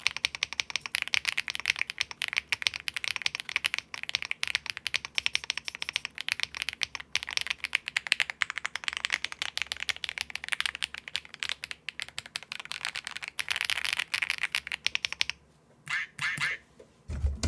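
Fast, continuous typing on an aluminium-case Akko M1 V5 mechanical keyboard, stock out of the box, with Akko Cilantro long-pole tactile switches and doubleshot PBT keycaps. The typing stops about 15 seconds in, a few last keystrokes follow, and a low thump comes near the end.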